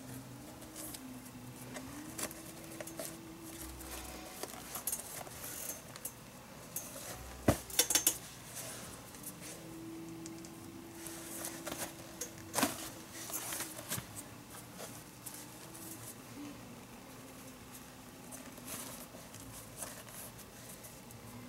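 Leather palm lace being worked through a Rawlings baseball glove with a lacing needle: soft scraping and rubbing of lace through the lacing holes, with scattered small clicks of the needle and leather handling. There are a few sharper clicks about seven and a half to eight seconds in and again near thirteen seconds. A faint low hum runs underneath.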